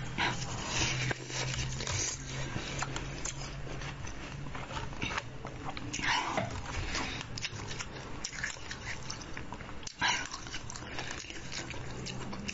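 Crunching and cracking of frozen basil-seed ice being bitten and chewed, a dense run of crackles with three louder bites spread through.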